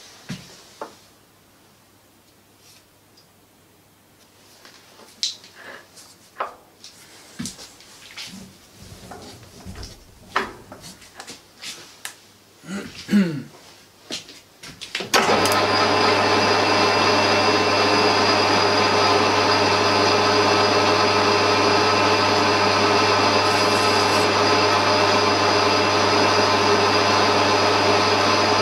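Scattered clicks and knocks for about the first half, then a Warco GH-1330 gearhead metal lathe starts suddenly and runs steadily with a multi-tone gear whine as its carbide tool is fed along a metal bar at a higher feed rate.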